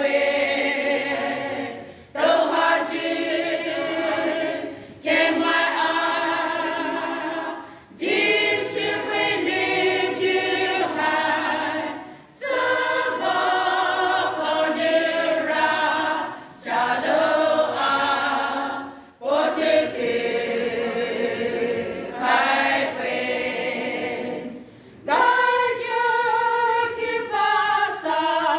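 Women's choir singing together without accompaniment, in phrases of about three seconds, each ending in a short pause for breath.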